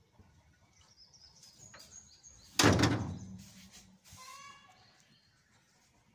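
A single loud thump, like a knock or impact, about two and a half seconds in, dying away within half a second. About a second and a half later comes a short, high-pitched animal call, with faint high chirps before the thump.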